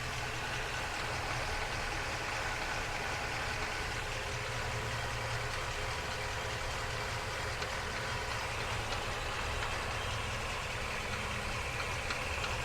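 Ford F-350's 7.3-litre gas V8 idling, heard from under the truck close to the 10-speed automatic transmission, with a light knocking running under the steady idle. The owner judges that the knock is coming from the transmission.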